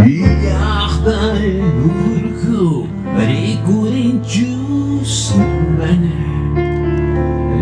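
Live band playing a blues arrangement of an Andean huayno, with a man singing over guitar, keyboard and drums.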